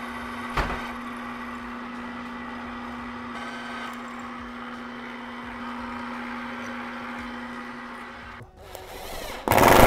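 Drill press running at a steady pitch as its bit cuts through a metal angle bracket clamped in a vise. The motor stops about eight and a half seconds in, and a brief loud noise follows near the end.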